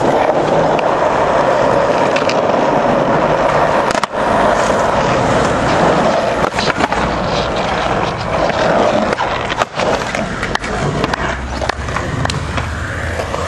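Skateboard wheels rolling over concrete with a steady, loud roar, broken by several sharp clacks of the board.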